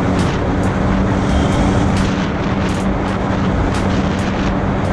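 Yamaha WaveRunner jet ski's engine running steadily at cruising speed, with one constant pitch over a dense rush of noise. Irregular short slaps of the hull on the chop come through on top.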